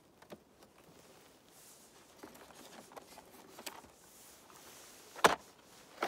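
Cardboard ammunition boxes being handled and moved: a few light taps and rustles, then a single sharp click about five seconds in.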